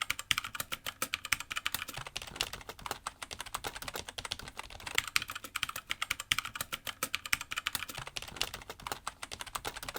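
Continuous fast typing on the Logitech G213 Prodigy's Mech-Dome rubber-dome keys: a dense stream of key clicks, many per second.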